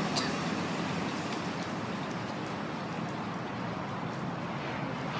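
A truck driving away, its engine hum fading over the first couple of seconds and leaving a steady road-and-traffic hiss.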